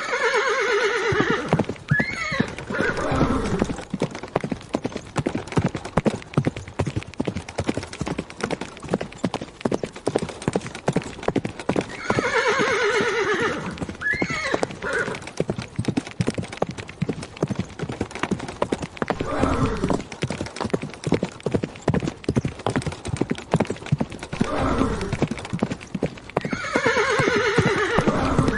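Horse galloping, with rapid hoofbeats throughout. Whinnies with falling pitch break in at the start, about twelve seconds in and near the end, with shorter neighs in between.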